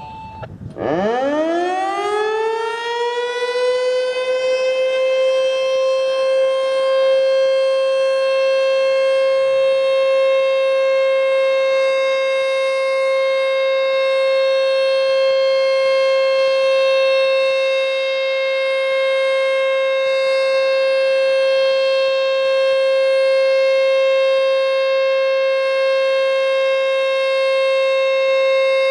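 American Signal Corporation T-121 tornado siren winding up about a second in, its pitch rising quickly and levelling off within a few seconds into a steady alert tone.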